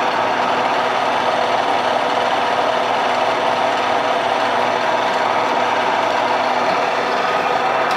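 Milling machine running steadily as a small drill bit bores a cross-hole through a motorcycle shift shaft for a pin.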